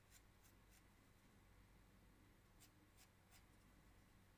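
Very faint scratching of a metal-tipped modelling tool on an unfired clay mug, working the join of a handle. It comes as two small clusters of three short scrapes, one near the start and one about two-thirds in, with near silence between them.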